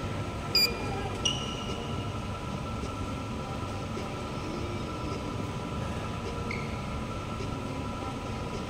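Steady low rumble of a large indoor sports hall, with two short, sharp squeaks of sports shoes on the court floor, about half a second and a little over a second in, and a fainter one near the end.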